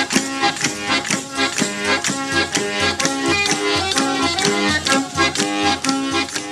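Traditional southern Italian folk music, in the manner of a tammurriata: a steady drum beat under a melody of held notes that step up and down.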